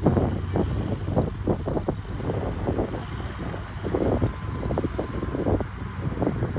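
Excavator diesel engines running steadily, with irregular knocks over the engine noise.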